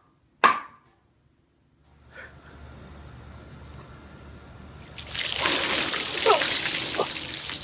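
A single sharp knock about half a second in. Then, from about five seconds in, water pours down from above and splashes over a man's head and shoulders, with a brief gasp from him during the soaking.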